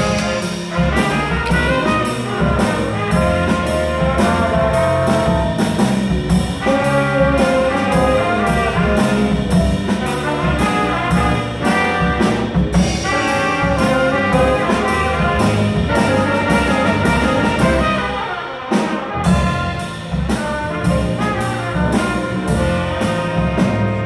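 A small jazz combo playing live: trumpets and saxophone carry the melody over piano and a drum kit keeping a steady beat. There is a brief break in the band about five seconds before the end.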